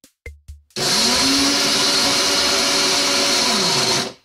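Small electric food chopper pulsed once, grinding shallots, garlic, turmeric and candlenuts with a little water into spice paste. After a few light clicks, the motor whirs up to speed a little under a second in and runs steadily for about three seconds. It then winds down to a stop near the end.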